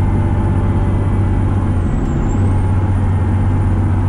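Pierce Dash fire truck's diesel engine running steadily at road speed, with a constant low rumble of engine, tyres and wind.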